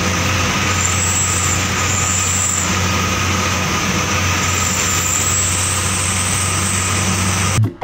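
Truck engine running at a steady cruise with road and wind noise, heard from inside the cab. It cuts off abruptly near the end.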